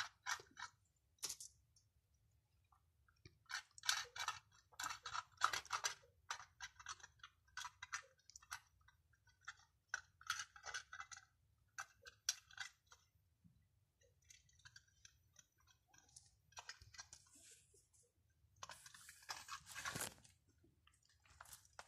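A cat eating soft food from a small cup: faint wet lapping and chewing smacks, coming in bunches of quick clicks with short pauses between. Near the end a longer rustling noise.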